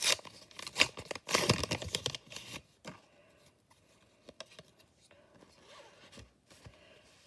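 Plastic wrapping of a packet of Bakugan cards crinkling and tearing as it is opened, loud for the first two and a half seconds, then quieter rustling and light clicks as the cards are handled.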